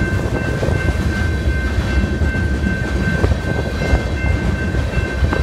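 Freight cars loaded with wind turbine blades rolling past close by: a steady loud rumble of steel wheels on rail, with scattered clicks over rail joints and a thin steady high whine throughout.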